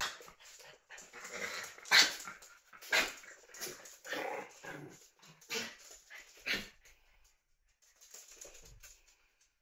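Small dogs barking in play: about six short, sharp barks and yips, the loudest about two seconds in, dying away to faint sounds after about seven seconds.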